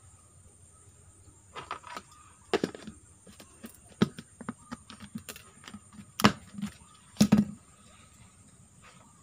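A string of irregular knocks and taps, loudest about six and seven seconds in, over a faint steady high tone.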